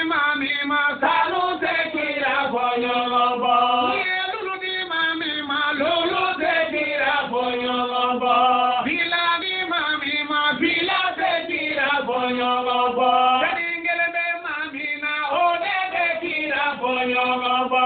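A man's voice chanting melodically, holding long notes and sliding through ornamented runs between them, with brief pauses for breath.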